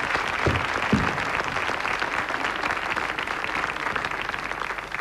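Studio audience applauding steadily, easing slightly near the end.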